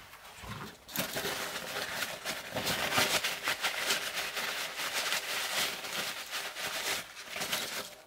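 A cloth rubbing and wiping over a pocket knife's bare metal frame, its scales removed: a rough, scratchy rubbing noise that starts about a second in and stops about a second before the end.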